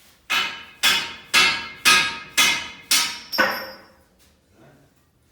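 Hammer striking metal, seven ringing blows in a steady rhythm of about two a second, the last one leaving a thin high ring.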